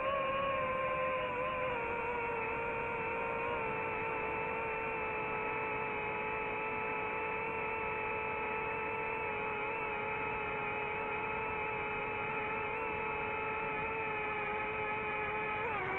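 DJI FPV drone's motors and propellers whining steadily in cruising flight, the pitch easing down slightly about two seconds in.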